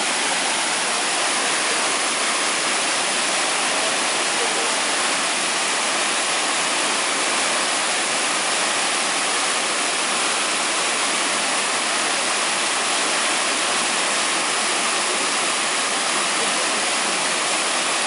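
Steady rushing of a waterfall's white water pouring down a sloping rock slab, heard close up.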